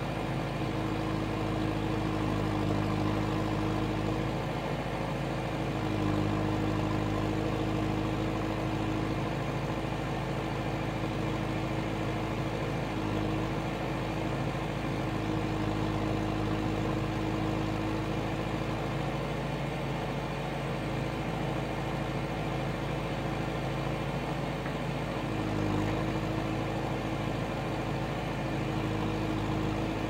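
JCB 3CX backhoe loader's diesel engine running steadily while the backhoe arm digs, its note shifting slightly several times as the hydraulics take load.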